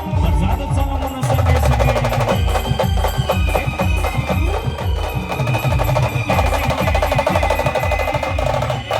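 A band playing a fast dance tune: a dense, driving drum rhythm under a sustained melody line.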